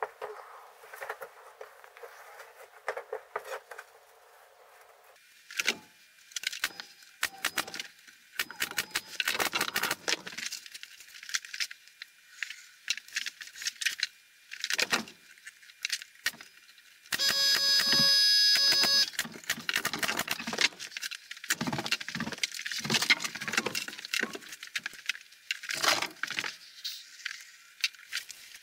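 Workshop handling noise: scattered clicks, taps and rattles of tools and wood being moved on a bench. Partway through, a small power tool's motor runs steadily for about two seconds.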